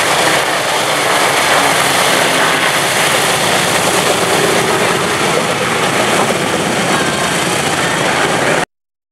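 Boeing B-17 Flying Fortress's four Wright R-1820 Cyclone radial engines running as the bomber taxis close by, a loud steady noise. It cuts off suddenly near the end.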